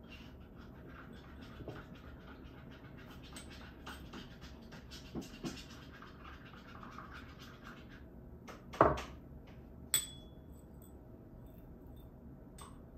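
Faint, irregular scratching and rustling, then a knock a little before nine seconds in and a sharp clink with a short ringing tone about ten seconds in.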